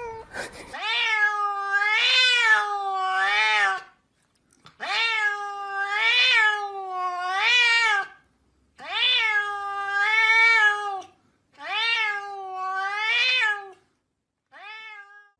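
A cat meowing in long, drawn-out, wavering calls: four long calls with short pauses between them, then a short one near the end.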